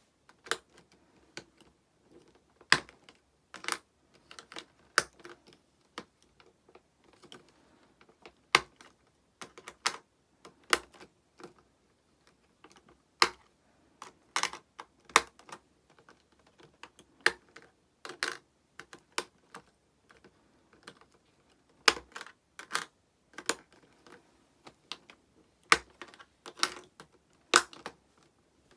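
Irregular sharp clicks and clacks of small hard plastic pieces being handled and set down, one or two at a time with uneven pauses, some louder than others.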